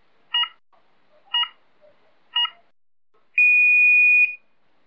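Start-clock countdown: short electronic beeps one second apart, three of them, then one long steady beep of about a second, like a race start signal. The long beep is a single pure tone and the loudest sound.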